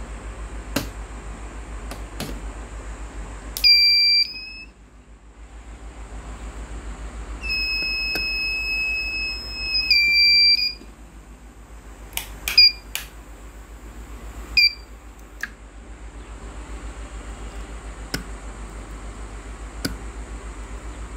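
An electronic buzzer beeping at one high pitch in irregular spells: a short beep about four seconds in, a long one of about three seconds soon after, then a few quick chirps. Light clicks of the circuit board being handled come between the beeps, over a steady low hum.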